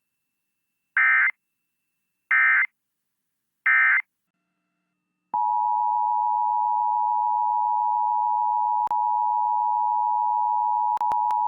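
Emergency Alert System signalling: three short digital data bursts about a second and a half apart, the end-of-message code closing a warning. After a pause, a loud, steady alert attention tone starts about five seconds in and holds, broken only by a couple of faint clicks.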